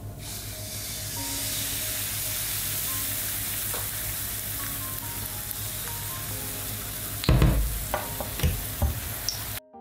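Thin pancake batter sizzling in a hot, oiled nonstick frying pan as it is poured in, a steady hiss that cuts off suddenly near the end. A few loud low knocks come in the last couple of seconds.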